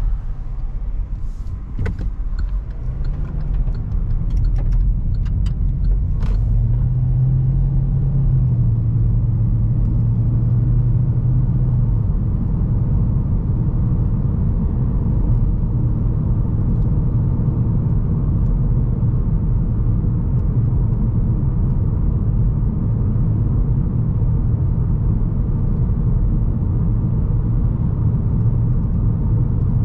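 Cabin sound of a 2020 Hyundai Elantra SEL's 2.0-litre inline-four with CVT pulling away onto the road: the engine note rises about three seconds in, holds steady, then eases about twelve seconds in into a steady cruising drone under low road and tyre rumble. A few faint clicks in the first six seconds.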